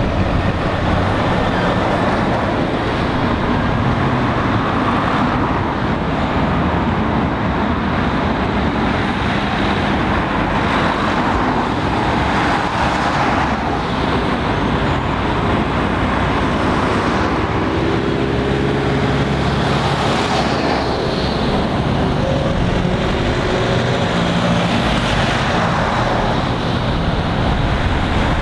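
Road traffic passing close by: a Scania box lorry, then a string of cars and a van go past one after another, engine and tyre noise.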